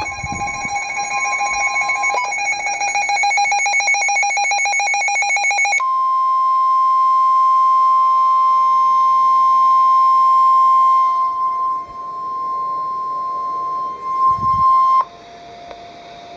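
NOAA Weather Radio warning alarm tone: a single steady high tone that heralds a weather warning. For the first few seconds a rapid pulsing beep sounds over it. The tone cuts off sharply about 15 seconds in, leaving a steady radio hiss.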